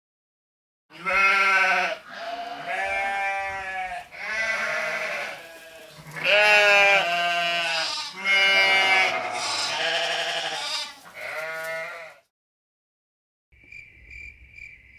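Sheep bleating, a run of about ten wavering calls one after another. Near the end comes a faint, rapidly pulsing high tone.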